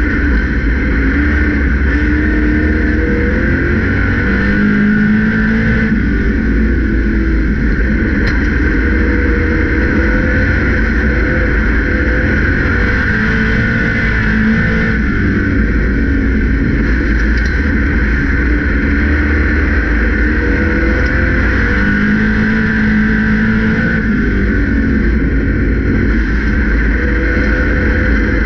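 Grand National stock car's race engine at racing speed, heard loud from inside the cockpit. Its pitch climbs and drops back in a repeating cycle about every eight to nine seconds as it laps the track.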